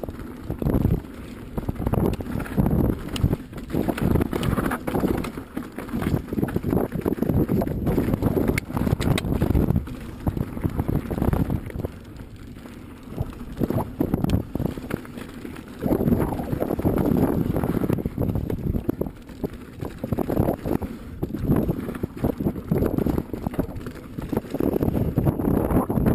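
Carbon full-suspension mountain bike ridden fast over a rough dirt trail: tyres rumbling on the ground and the bike rattling and knocking over roots and rocks, with wind buffeting the microphone. It eases off for a few seconds around the middle, then gets rough again.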